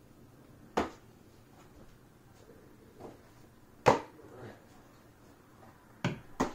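Sharp, short smacks of a ball landing in a leather baseball glove during a game of catch: one about a second in, a louder one about four seconds in, and two close together near the end.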